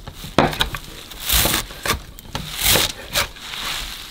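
Kitchen knife chopping chives on a cutting board: about five sharp chops at an uneven pace, with lighter cuts between.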